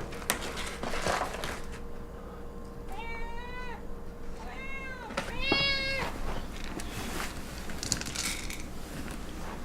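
Domestic cat meowing three times, a few seconds apart, the last meow the loudest. It is demanding to be fed.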